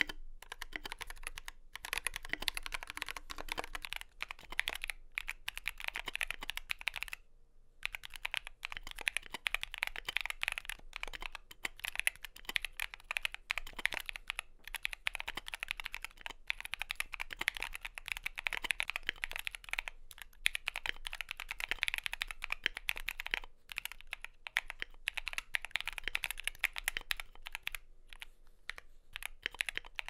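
Continuous typing on a GK68XS 65% wireless keyboard with Akko CS Blue tactile switches and Akko ASA keycaps. It is first in stock form, and later has PE foam and StP 5k damping added. The typing stops briefly about seven seconds in.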